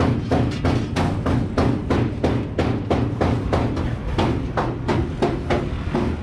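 Rapid, steady hammering from workshop repair on a bus body, about five blows a second, over a steady low machine hum.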